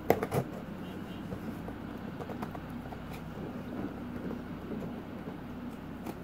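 Handling of a cardboard shipping box being opened: two sharp clicks near the start, then faint scattered taps and scrapes over a steady low hum.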